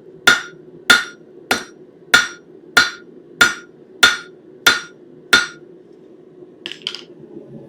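Hand hammer striking hot 1/4-inch square steel stock over the anvil horn, drawing out a taper: nine evenly spaced ringing blows, about one and a half a second, that stop a little after five seconds, followed by two light clinks.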